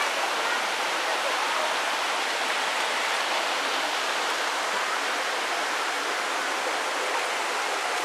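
River water rushing steadily over rocks: an even, unbroken hiss of flowing water.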